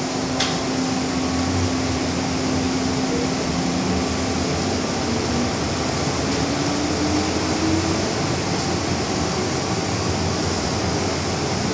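Inside a moving MTR M-Train carriage: a steady rumble and hiss of the running train and its ventilation, with a motor whine that rises in pitch about halfway through. There is a short click just after the start.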